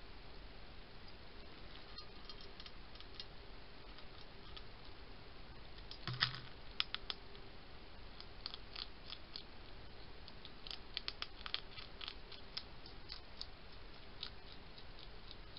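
Hedgehog eating from a bowl: irregular crunching and smacking clicks of chewing, with a heavier knock about six seconds in, over a steady hiss.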